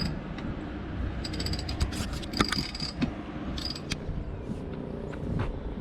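Sailboat winch ratcheting in irregular clicks as a line is hauled in to raise the genoa sail.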